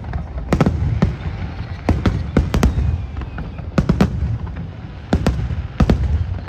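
Fireworks display going off: sharp bangs in quick clusters of two or three, roughly every second, over a steady low rumble from the ongoing bursts.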